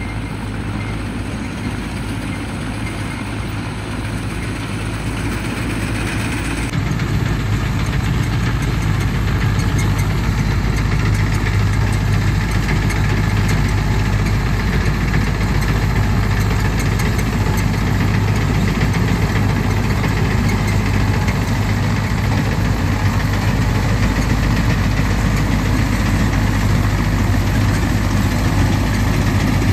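Tractor-mounted Gahir Nippy45 mini combine harvester running as it cuts paddy: a steady engine drone with a strong low hum. The sound steps up louder about seven seconds in and then holds steady.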